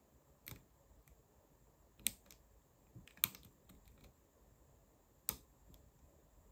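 Small sharp clicks of a hook pick working the pins inside a Vachette 5-pin pin-tumbler lock cylinder under tension. Four clicks spread over several seconds, the loudest about three seconds in.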